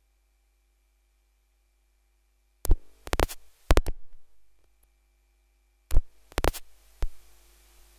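Near silence, then six sharp, loud knocks in two groups of three, each with a short ring after it.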